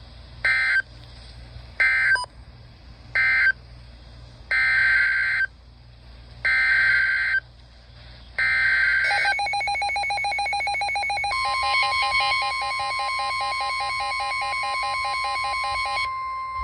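EAS/SAME digital data bursts from an emergency alert broadcast: three short squawks, then three longer ones, the pattern of an end-of-message code followed by the next alert's header. A rapidly pulsing electronic beeping follows, and a long steady alert tone then starts under it.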